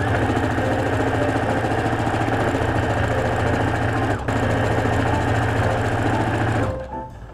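Brother NV2600 lockstitch sewing machine stitching steadily at speed, topstitching a seam in linen, with a brief break about four seconds in; it stops shortly before the end.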